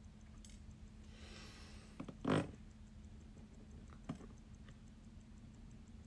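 Small metal clicks and taps of watchmaker's tweezers and tools on a wristwatch movement as the pallet fork is lifted out, with one louder knock just past two seconds in, over a steady low hum.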